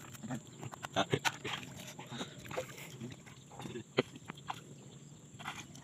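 Water splashing and dripping as a person wades waist-deep and hauls a fishing net up out of shallow paddy water: a string of short, uneven splashes and drips, with one sharper click about four seconds in.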